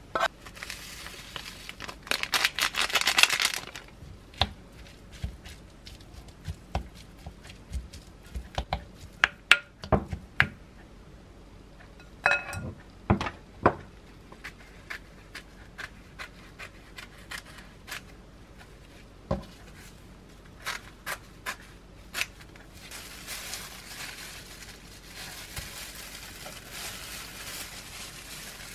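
Kitchen handling sounds at a glass mixing bowl. About two seconds in comes a burst of scraping as diced carrots are scraped from a frying pan into the bowl. Scattered clinks and knocks against the glass follow, and crinkly plastic rustling runs through the last few seconds.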